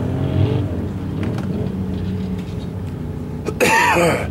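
A lifted 4x4's engine runs hard as the truck churns through a mud bog, revving up briefly at the start. About three and a half seconds in, a man coughs loudly close to the microphone.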